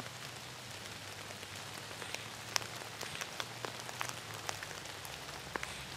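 Rain falling on leaves and leaf litter: a steady hiss dotted with scattered sharp drop ticks.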